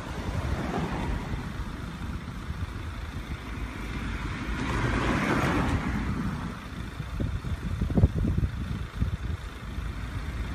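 Diesel engine of a ten-wheel dump truck rumbling at low revs as it creeps forward with its bed tipped up, spreading a load of soil. The rumble surges about five seconds in, and there is a sharp knock about eight seconds in.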